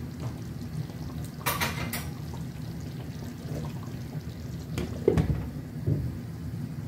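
Chicken curry simmering in a frying pan on a gas hob, a steady low bubbling. Two sharp clinks of a utensil on the pan come about a second and a half in. A glass lid is set down on the pan about five seconds in, making a dull knock.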